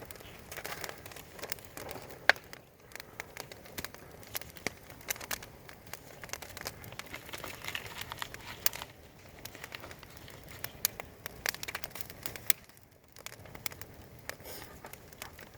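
Wood fire crackling, with irregular sharp pops and snaps over a faint hiss; the loudest pop comes about two seconds in.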